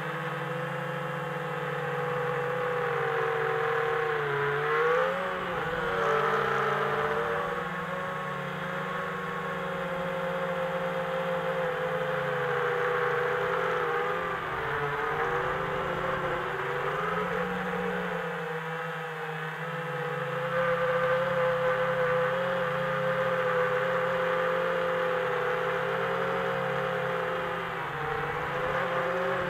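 The FPV quadcopter's four brushless motors (T-Motor Velox 2306 2400 kV, 4S) whining steadily. Their pitch rises and dips several times as the throttle changes, heard from a microphone on the drone.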